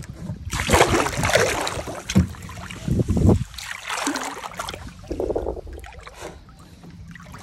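Water sloshing and splashing in irregular surges around legs wading through shallow sea water, with wind rumbling on the microphone.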